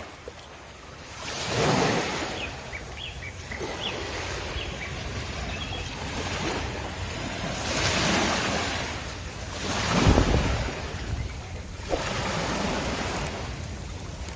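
Rushing noise that swells and fades about four times, with a low rumble in the loudest swells.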